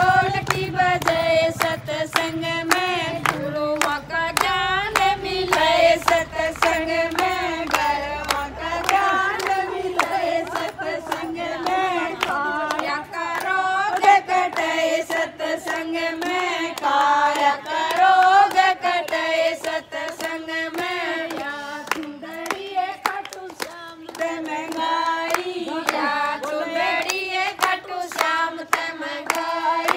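Women singing a devotional bhajan to steady, rhythmic hand clapping in time.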